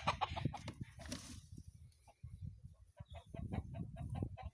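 Chickens clucking in short, irregular calls, fairly quiet.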